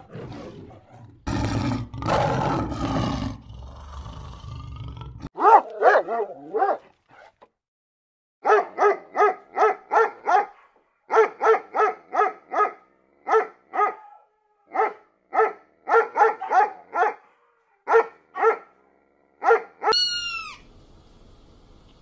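A lion roaring. Then a long run of quick, high-pitched puppy barks in rapid bursts of four or five. Near the end a cat gives one meow.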